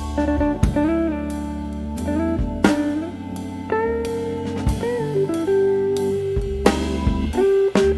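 Instrumental background music: a lead guitar playing held, bending notes over a bass line and a drum kit.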